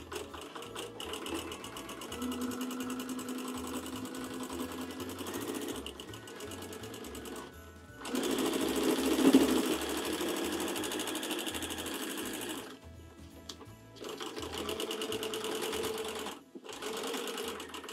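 Home sewing machine free-motion stitching a tight straight stitch, running in bursts with short stops about 8, 13 and 16 seconds in. It is loudest in the middle stretch.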